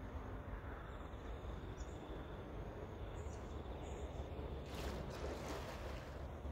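A swimmer duck-diving headfirst under the water: a brief splash of churned water about five seconds in. Behind it a steady low rumble and faint high insect chirps.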